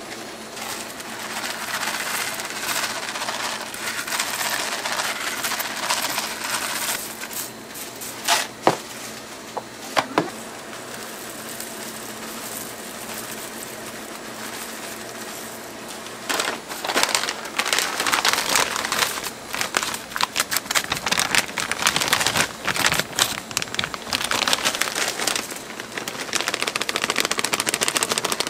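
Dry breakfast cereal (corn flakes and puffed grains) poured from plastic containers and bags, rattling and crackling, with a couple of sharp clicks about eight and ten seconds in and denser crackling through the second half.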